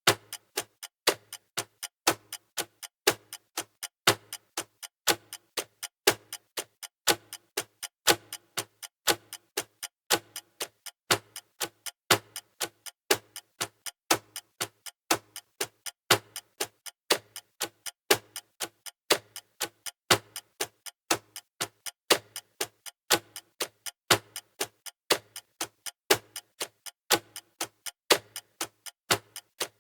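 Clock ticking steadily and evenly, with a louder tick about once a second and several quieter ticks between.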